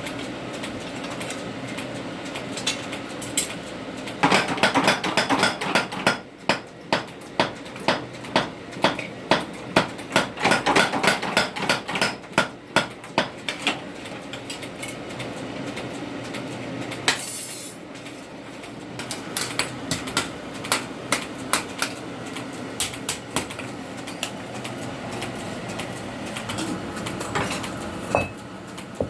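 Blacksmith's hammer striking steel on an anvil in a run of sharp blows, about two to three a second, while forging a socketed spear blade (fukuro-yari). A short burst of hiss comes about seventeen seconds in, then lighter, quicker taps follow.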